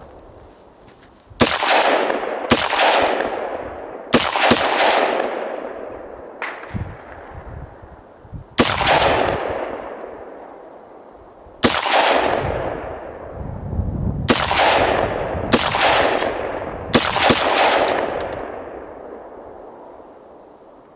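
AR-15 rifle fired in single semi-automatic shots, about ten at uneven gaps, some in quick pairs. Each shot is followed by a long echo that fades over a second or two.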